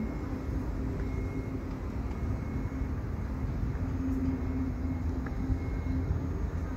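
Steady low rumble of outdoor city ambience, with a steady low hum running through it.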